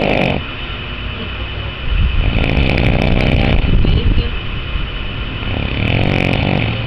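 Loud snoring: a long rasping snore about two seconds in, and a shorter one near the end.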